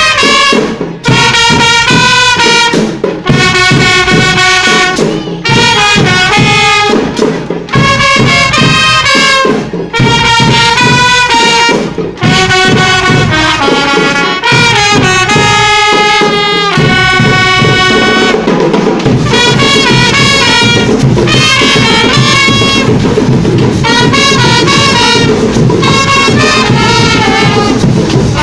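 Marching band of trumpets and drums playing. The brass phrases are broken by short gaps at first, and from about halfway through the trumpets play on without pause over steady drumming.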